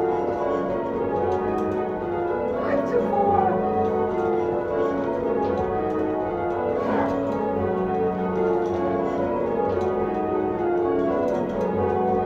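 Church tower bells rung full-circle in English change ringing, each bell pulled by rope from the ringing chamber below: a continuous run of overlapping bell strikes, one after another, their tones ringing on into each other.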